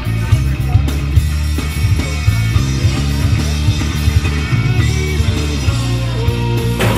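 Rock music soundtrack with a heavy bass line and a steady drum beat.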